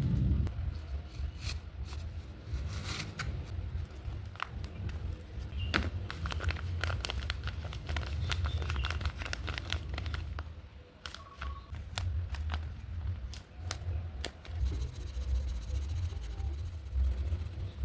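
Craft materials being handled, crinkling and crackling, with many scattered small clicks and rustles over a low rumble.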